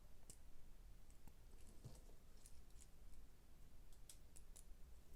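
Faint, scattered clicks of small plastic Lego Technic pieces being handled and pressed together.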